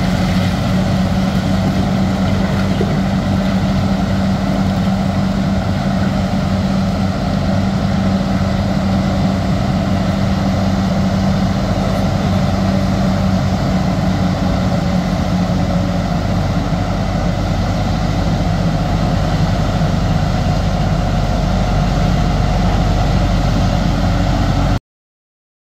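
Large Volvo crawler excavator's diesel engine running steadily under load, a loud constant machine drone with a steady low hum. The sound cuts off suddenly near the end.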